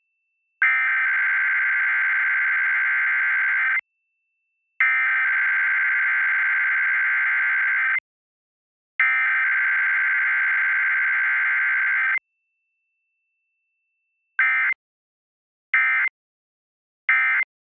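Emergency Alert System SAME data bursts of a Required Weekly Test: three header bursts, each about three seconds long with a second's gap between them, then three short end-of-message bursts near the end. No attention tone sounds between them.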